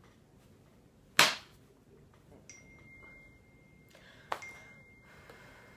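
Quiet small room with one loud, sharp smack about a second in and a fainter click about three seconds later. A faint steady high tone runs through the second half.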